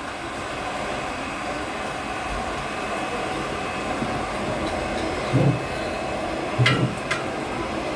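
Forge fire under a steady air blast, a continuous roar as the iron heats toward working temperature. A few light knocks and metal clinks come about two-thirds of the way through.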